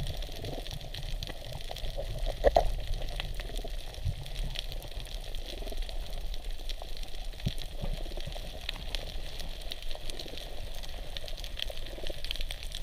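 Underwater ambience: a steady muffled wash of moving water with scattered faint clicks and crackles, and one brief louder sound about two and a half seconds in.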